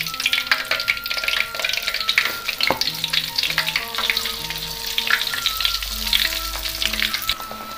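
Flour-coated egg deep-frying in hot oil in a wok, with steady crackling and sizzling as the batter cooks.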